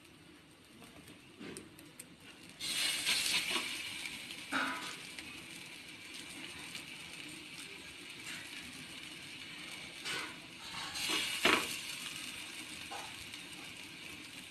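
Cashew-paste patties sizzling on a hot, oiled tawa as each is laid down and pressed flat: a sizzle starts suddenly about three seconds in and slowly fades, and a second one starts around ten to eleven seconds, with a few short taps of fingers on the patties.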